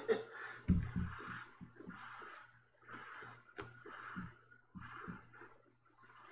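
A person breathing audibly in a steady rhythm, one breath about every second, with a couple of soft low thumps about a second in.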